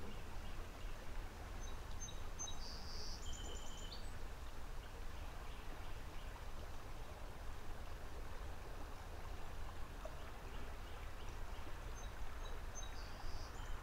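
Creek-side outdoor ambience: a steady low rumble with an even hiss. A songbird sings a short phrase about two seconds in and again near the end.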